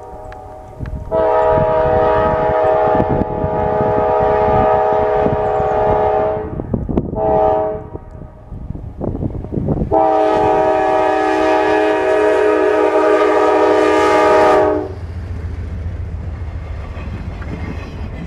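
Norfolk Southern snow plow train's locomotive air horn sounding a chord: a long blast, a short one and another long one, the pattern of a grade-crossing signal. Under it, the train's rumble and clatter, which carries on as a low rumble after the horn stops.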